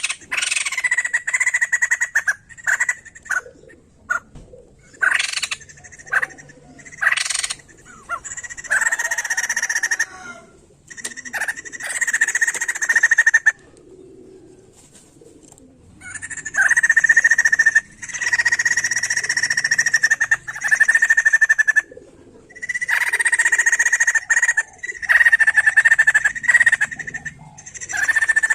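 White-crested laughingthrush (poksay jambul) calling loudly. It starts with a string of short, sharp notes, then gives longer bursts of chattering calls lasting a few seconds each, with pauses between them.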